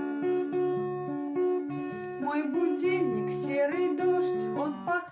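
Acoustic guitar playing picked, strummed chords. About two seconds in, a voice begins singing over it.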